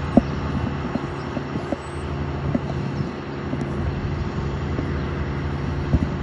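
Steady low drone of construction machinery's engine running, with scattered light knocks over it.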